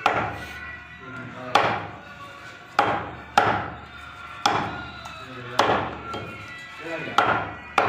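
Butcher's heavy knife chopping through beef, about nine hard strikes roughly a second apart, each with a short ringing decay.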